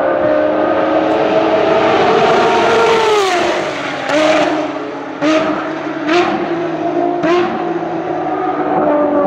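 Ferrari racing car's engine at high revs as it passes, its pitch dropping sharply about three seconds in, then braking through four quick downshifts, each a sharp throttle blip that steps the engine note back up.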